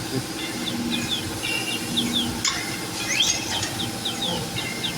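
A bird chirping repeatedly in quick, high, downward-slurred notes, over a steady background hiss and hum, with one sharp click about halfway through.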